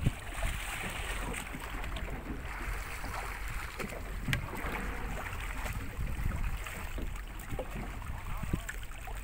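Seawater sloshing and slapping against the hull of a small boat, over a steady low rumble of wind on the microphone, with a sharp knock right at the start and another about four seconds in.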